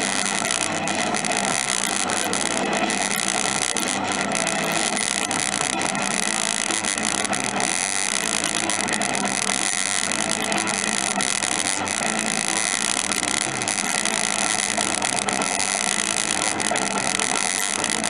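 Steady amusement-arcade din: a dense mix of machine hum and many held electronic tones, with no single event standing out.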